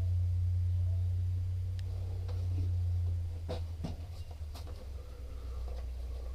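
A low steady motor hum, muffled, with a few sharp knocks a little past the middle.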